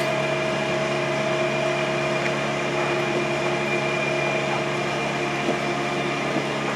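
A steady mechanical hum with several fixed pitched tones, unchanging throughout, like a motor or fan running.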